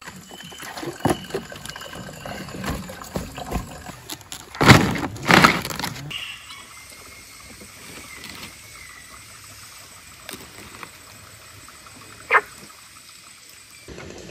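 Water sloshing and splashing as a wet whole pig carcass is handled and set down on a woven bamboo tray, with two loud splashes about five seconds in. After a sudden change the sound drops to quiet outdoor background with one short sharp sound near the end.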